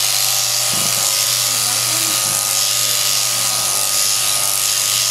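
Electric sheep-shearing handpiece on an overhead drive running steadily as it cuts through a sheep's fleece: a constant machine hum with a hiss over it.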